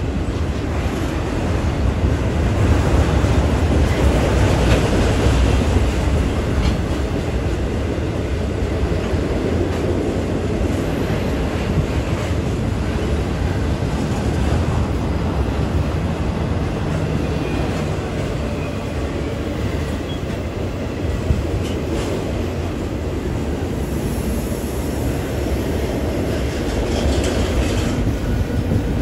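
Double-stack intermodal freight train's loaded well cars rolling past: a steady noise of steel wheels on rail, strongest in the low end, with a few sharp clacks.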